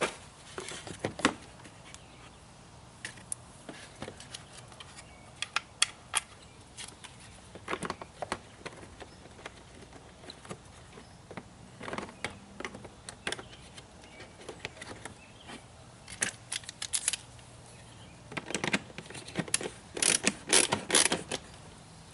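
Irregular clicks, light knocks and short rattles of plastic car trim parts being handled and fitted, with busier clusters of clatter about two thirds of the way through and near the end.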